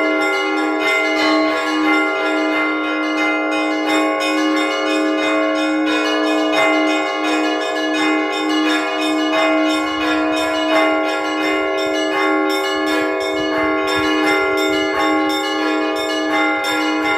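Russian Orthodox church bells rung by hand by one bell ringer. A lower bell is struck about twice a second under quicker, rhythmic strikes of several smaller, higher-pitched bells, their tones ringing over one another. This is a Sunday peal calling the parish to prayer.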